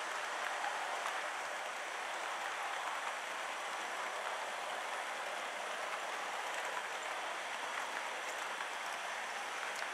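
Model railway passenger coaches rolling along the track close by, their small wheels on the rails giving a steady rolling noise with a few faint ticks.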